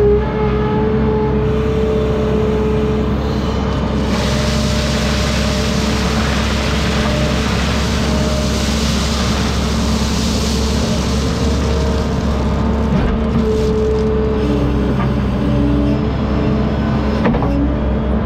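Heavy-equipment diesel engine running steadily, with whining tones that shift in pitch now and then and a stretch of hiss through the middle.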